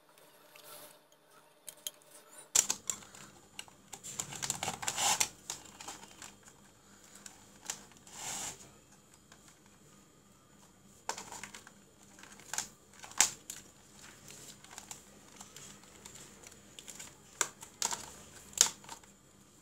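Handling noise: scattered clicks, taps and rustling as hands sort wires and a mains power cord and plug around a plastic project box, with a denser stretch of rustling about four seconds in.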